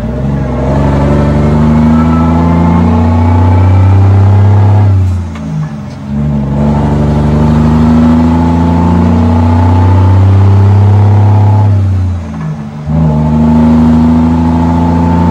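Cummins L10 inline-six diesel running through 6-inch straight pipes, pulling hard under load at about 36,500 lb gross. The exhaust note climbs as it pulls and drops away briefly twice, about five and twelve seconds in, as the truck shifts gears.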